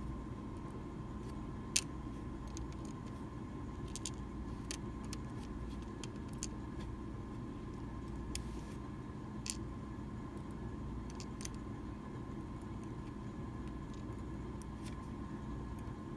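Scattered small sharp clicks of metal tweezers and Medeco lock pins tapping on a pin tray, over a steady low hum. The loudest click comes about two seconds in.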